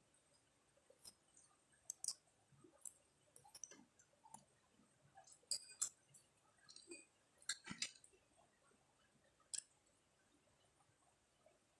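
Quiet eating sounds: scattered faint clicks and small taps of chewing and utensils, clustered between about two and eight seconds in.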